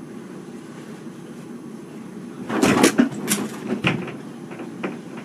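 Thumps and knocks as a cat tumbles off a bed, a loud cluster about two and a half seconds in and a few lighter knocks after, over a steady low room hum.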